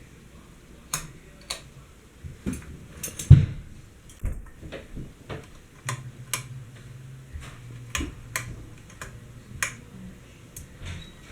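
52-inch GEV ceiling fan making irregular light clicks and one heavier knock, then a low motor hum that comes in about six seconds in.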